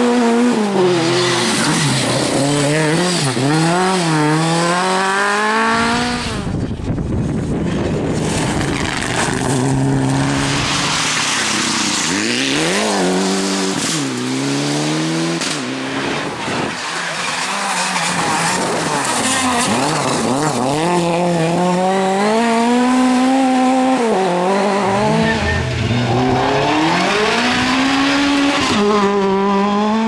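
Rally cars driven hard on a loose gravel stage, engines revving up and dropping back again and again through the gears. Between about six and ten seconds in, a rush of gravel and tyre noise drowns out the engine note.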